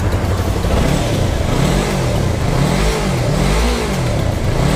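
Yamaha R3's liquid-cooled parallel-twin engine revved at a standstill: a steady idle for about the first second, then several short throttle blips, the engine note rising and falling about once a second.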